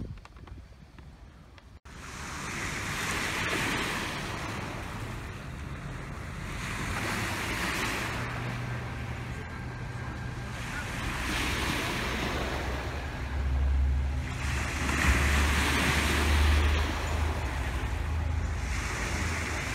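Water rushing and wind buffeting the microphone aboard a moving motorboat, over a low engine rumble. The noise comes in suddenly about two seconds in and then swells and eases about every four seconds.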